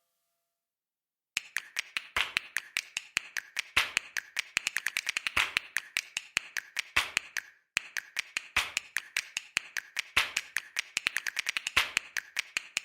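A rapid, irregular run of sharp clicks or taps, several a second, starting after a second and a half of silence and pausing briefly about halfway through.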